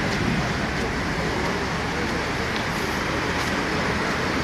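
Steady street din: a low rumble with a hiss over it, like traffic or running engines, with no single event standing out.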